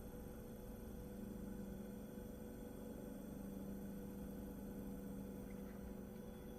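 Wippro diesel heater faintly humming steadily during a start attempt that is not lighting, a failure the owner traced to a bad fuel pump behind its E-8/E-10 error codes.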